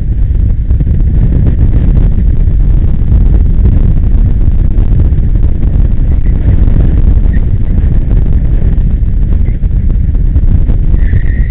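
Heavy wind rumble on the on-board camera's microphone as an electric go-kart drives at speed, with no engine note. A brief high-pitched tone comes in near the end.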